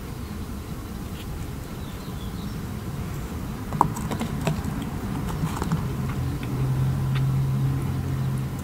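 Close-miked light clicks and crackles of macaron shells being handled and pressed between fingertips, over a steady low rumble. A low steady hum sounds for a couple of seconds near the end.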